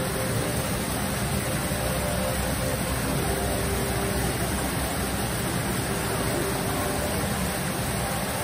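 Steady, even hissing background noise with no distinct events.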